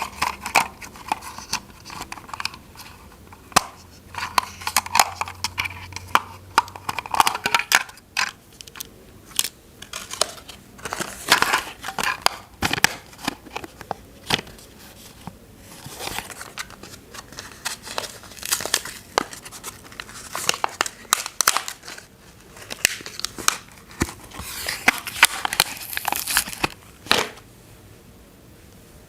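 Toy packaging being handled and opened by hand: irregular crinkling and tearing of plastic and cardboard, with many sharp clicks, stopping shortly before the end.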